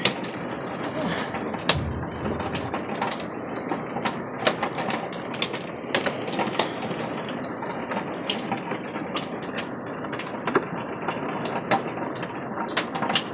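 Hail and rain drumming on an RV's roof: a steady dense patter with many sharp, irregular ticks of hailstones striking.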